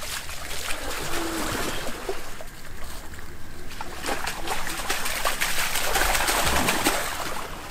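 Water splashing and trickling, with scattered short clicks and knocks.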